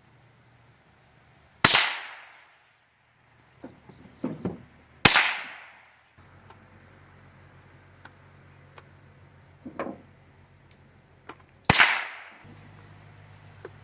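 Three gunshots from an AR-15 rifle, the first about three and a half seconds before the second and the third some six seconds later, each ringing out briefly after the crack.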